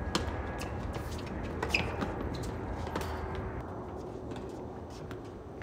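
Tennis ball struck by rackets during a rally: a few sharp pops, the loudest a little under two seconds in with a brief ringing ping, over steady low background noise.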